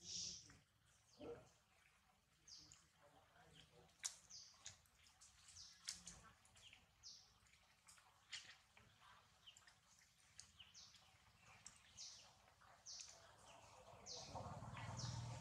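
Near silence: faint outdoor ambience with scattered short, high chirps that fall in pitch, and a low rumble building near the end.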